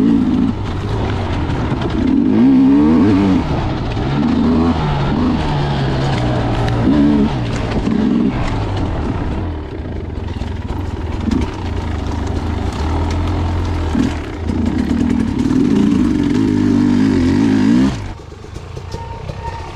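Dirt bike engine heard close up from the bike, revving up and down under constantly changing throttle as it is ridden along a trail. The sound drops suddenly to a quieter level about eighteen seconds in.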